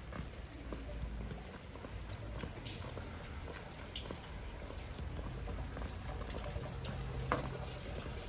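Steady rain falling and dripping, with many small scattered taps of drops and one sharper tap about seven seconds in.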